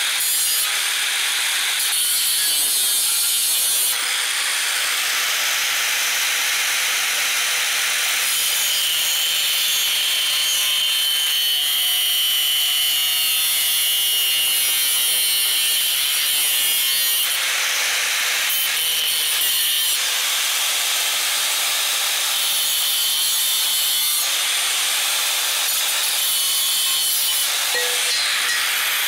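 Electric angle grinder (Makita) with a cut-off wheel cutting through metal tubing, a steady shrill grinding whine that shifts abruptly every few seconds as the wheel bites and moves along the cut.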